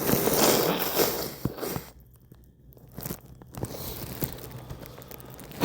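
Crackling, rustling noise with scattered clicks, like handling close to the microphone; it drops away for about a second and a half in the middle, then returns more faintly.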